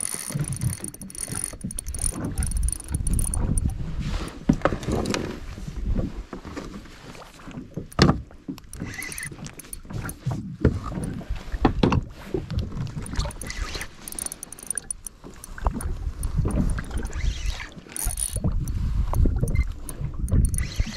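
Handling noise on a fishing kayak: water sloshing against the hull, gusts on the action camera's microphone, and scattered knocks and mechanical clicks from gear on the kayak. The sharpest knock comes about 8 seconds in.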